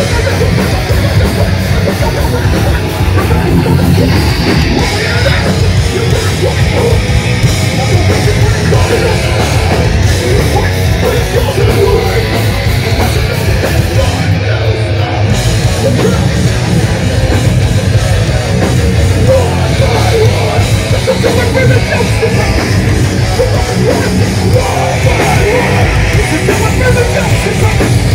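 Live hardcore punk band playing loud: distorted electric guitars, bass guitar and drums, with yelled vocals over the top.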